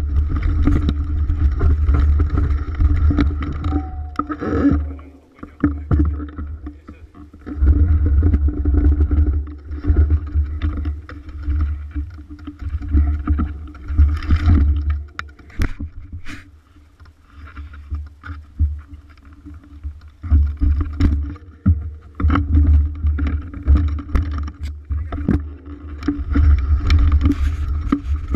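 Mountain bike riding fast down a rough dirt singletrack: heavy wind rumble on the GoPro Hero 3's microphone, with the bike rattling and knocking over bumps. It eases off twice, where the rider slows, and then picks up again.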